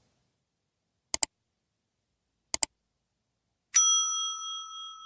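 Subscribe-animation sound effects: two sharp double mouse clicks about a second and a half apart, then about four seconds in a bright bell ding of several tones that rings on and slowly fades.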